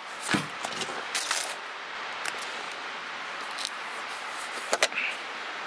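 A few short clicks, taps and rustles from handling small items out of a fly-fishing subscription box: a sticker being put on and packaging being moved. Under them runs a steady rush of river water.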